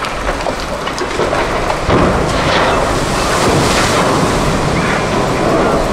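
Cargo ship side-launched into a canal, its hull sliding off the slipway and slamming sideways into the water: a loud rushing splash of spray and surging water that swells about two seconds in, with wind buffeting the microphone.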